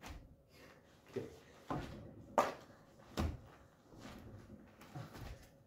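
Irregular knocks and rustles of players shifting their hands, knees and feet on a plastic Twister mat on carpet, about six in all, the loudest a thump about two and a half seconds in.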